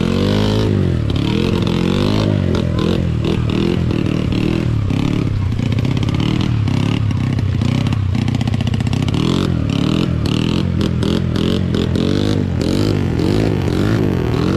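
Dirt bike engine revving hard up and down, again and again, as the bike fights its way through deep mud, with scattered clattering knocks.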